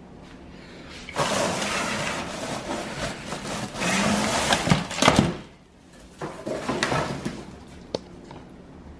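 Artificial Christmas tree branches rustling and scraping against a cardboard box as they are pulled out. It comes in two spells with a few knocks.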